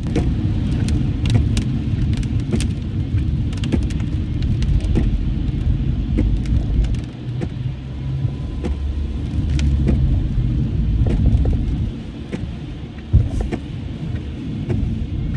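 Car driving on a rain-soaked road, heard from inside: a steady low rumble of tyres and engine on wet pavement with scattered sharp ticks, and one sharp thump about thirteen seconds in.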